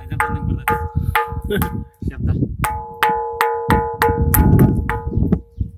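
Ringing rock: a large granite boulder struck rapidly with a hand-held stone, each blow giving a bell-like ringing tone. About three to four strikes a second, with a short pause about two seconds in.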